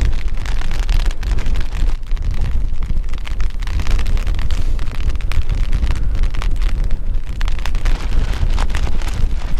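Strong wind buffeting the microphone with a heavy, uneven rumble, over a steady hiss and many small ticks of light, spitting rain.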